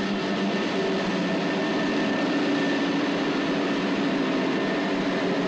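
Cast iron brake block with 3% phosphorus clamped at full force against the spinning wheel of a full-scale railway brake dynamometer, during a simulated emergency stop from 110 km/h. The wheel is still slowing, and the sound is a loud, steady grinding rush with a low drone under it.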